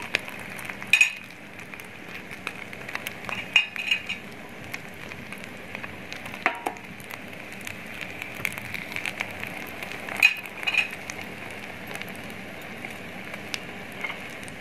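Egg-coated shami kebabs sizzling as they fry in melted beef fat in a metal pan: a steady crackling hiss with a few louder clicks and pops scattered through it.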